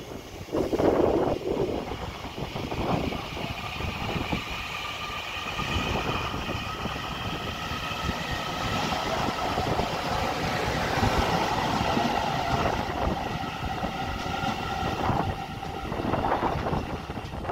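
Taiwan Railway EMU900-series electric commuter train pulling out and gathering speed, its motors giving an electric whine that rises slightly in pitch over the rumble of the wheels on the rails.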